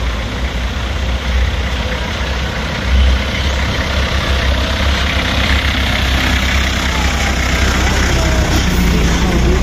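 Engine of a lion-shaped zoo transport car running steadily, with a low rumble.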